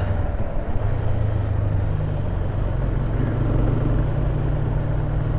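Honda CB 300R's single-cylinder engine running at a steady cruise, under a steady rush of wind and road noise.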